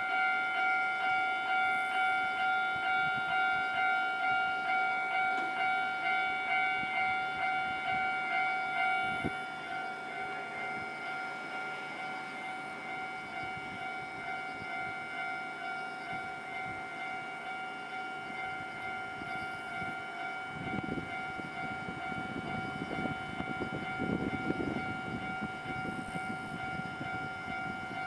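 Japanese railway level-crossing alarm ringing its repeated electronic bell tone, about one and a half rings a second, dropping in level about nine seconds in. From about twenty seconds in, a train rumbles through.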